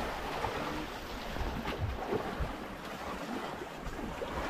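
Wind gusting on the microphone over the wash of sea waves, with an uneven low rumble.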